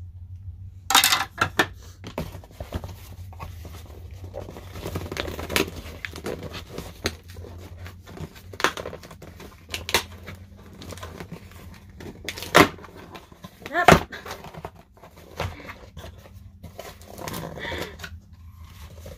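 Cardboard shipping box being cut open: a small cutter scraping and slicing along the packing tape, with tearing, crinkling and sharp clicks as the tape and flaps give. Louder snaps come about a second in and twice around the middle.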